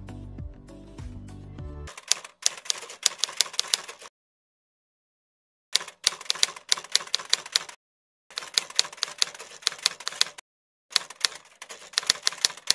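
Background music for about two seconds, then a typewriter sound effect: rapid key clacks in four runs of about two seconds each, separated by short silences.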